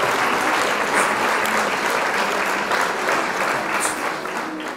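Pot of rice and kidney beans boiling in broth, a steady dense crackling bubble that dies down near the end.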